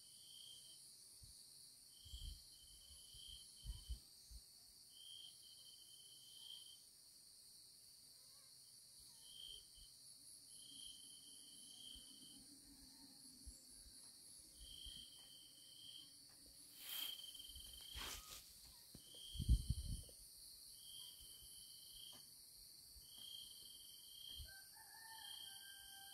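Faint insect chorus in vegetation: a steady high-pitched trill, with a shorter chirping call repeating every second or two. A few soft low thumps and two sharp clicks break in, the loudest thump a little before the end.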